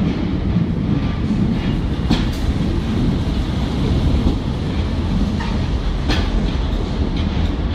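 Class 143 Pacer diesel railbus running past close by: a steady low rumble of engine and wheels, broken by a few sharp clicks as the wheels cross rail joints.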